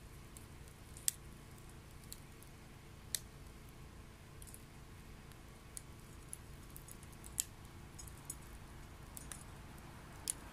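Wet firewood burning in a homemade secondary-combustion wood stove: faint, irregular sharp pops and crackles, about a dozen, over a low steady rumble.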